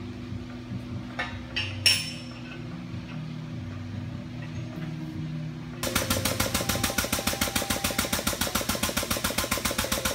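Pump of a hydraulic bend-test jig starting up about six seconds in and pulsing rapidly and evenly, about eight strokes a second, as it drives the ram that bends a welded test coupon. Before it starts there is only faint background music and a couple of sharp clicks.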